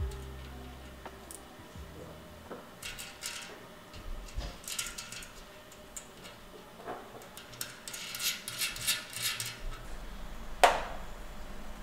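Small handling noises of fitting a valve stem into a taped bicycle rim: light clicks and short rustles. Near the end a rubber mountain bike tyre is handled, with one sharp knock about ten and a half seconds in.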